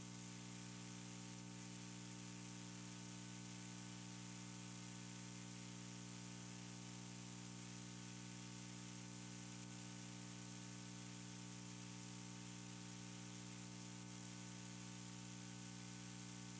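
Steady electrical hum with a stack of even overtones, over a constant hiss: mains hum and noise picked up by the recording setup.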